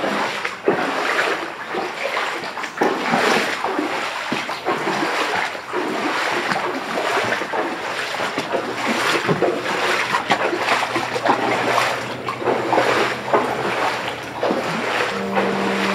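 Footsteps wading through shallow floodwater over a wooden floor, an uneven splash and swish with each step.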